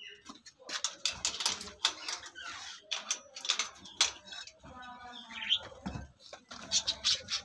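Clicks, knocks and rattles of hands working at a wire-mesh aviary with a metal frame, with a short pitched call about five seconds in.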